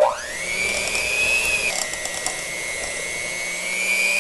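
Electric hand mixer starting up with a rising whine, then running steadily as its beaters cream thick peanut butter and confectioners' sugar. Its pitch drops a little after about a second and a half and climbs again near the end.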